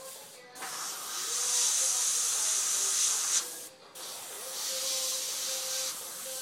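Airbrush spraying paint with a steady hiss of air, cut off briefly about half a second in and again about three and a half seconds in as the trigger is let off between passes.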